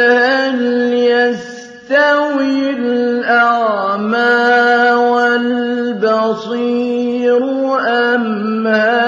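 Male Quran reciter chanting in the slow, melodic mujawwad style, holding long drawn-out notes with ornamented rises and falls in pitch. He breaks off briefly for breath about a second and a half in.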